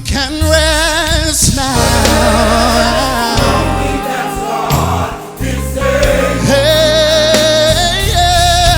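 Gospel choir singing held notes with vibrato over live band accompaniment with a steady bass line.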